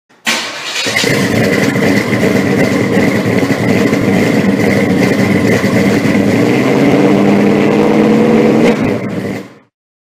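A car engine catching suddenly and running loudly, with a steady high whine above its note, which climbs a little about seven seconds in before the sound fades out.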